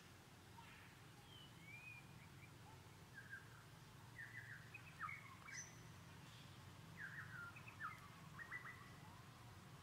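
Faint forest bird chirps and short twittering phrases, with two busier clusters about four and seven seconds in, over a low steady hum.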